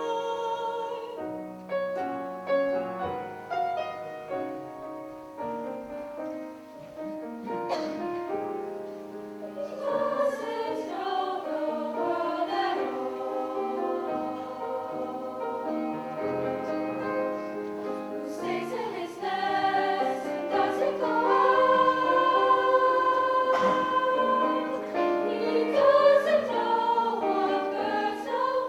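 Vocal ensemble singing several-part harmony, sustained chords moving from note to note. It starts soft and swells fuller from about ten seconds in, loudest near the end.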